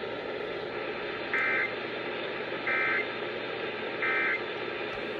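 Emergency Alert System end-of-message signal over AM radio: three short bursts of warbling digital data tones (the SAME "NNNN" code), about 1.3 seconds apart, over steady radio hiss. The bursts mark the end of the alert.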